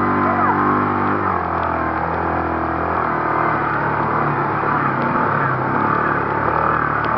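Off-road vehicle engine running as it drives a dirt track, heard from inside the cab over road and tyre noise. The engine note drops about a second in, then holds steady.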